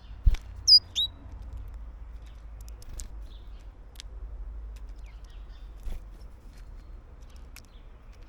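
A small wild bird gives two short, high chirps about a second in, just after a dull thump. Scattered light taps follow over a steady low rumble.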